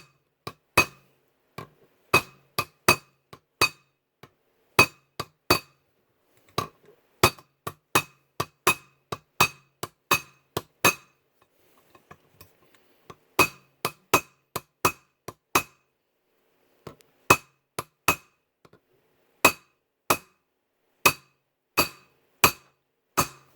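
Brass hammer tapping a two-part brass rivet through a knife handle to set it: a long run of sharp, ringing metallic strikes, one or two a second. The strikes pause briefly about halfway through and again about two-thirds through.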